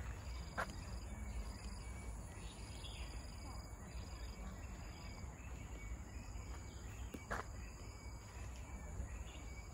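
Tropical forest ambience: insects calling in steady, high, on-and-off tones over a low rumble, with two sharp clicks, one about half a second in and one near the end.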